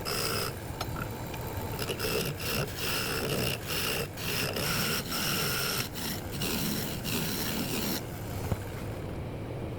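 Wood lathe spinning a Burma teak blank while a turning tool rubs and scrapes across the wood in repeated passes, with the lathe's steady whine underneath. The passes break off briefly every second or two, and the whine fades near the end.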